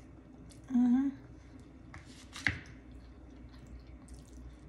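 Eating sounds from someone tasting pasta: a short hummed 'mmm' about a second in, then quiet wet mouth sounds and chewing, with one sharp click about halfway through.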